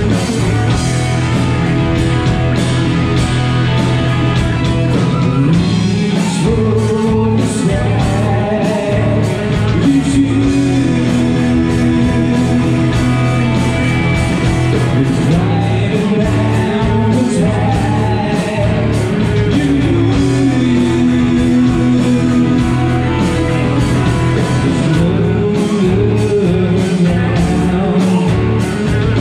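A rock band playing loud live music: electric guitars, bass and a drum kit, with a singer's voice.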